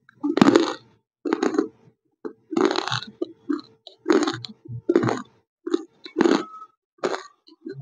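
Close-miked crunching as hard white chunks of 'white nakumatt' are bitten and chewed. There are separate crisp crunches about once a second, with short silences between them.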